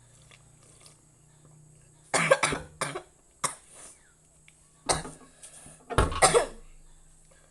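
A person coughing hard in a fit of about five or six sharp coughs, starting about two seconds in and coming in clusters, after a chilli-hot drink went up the nose.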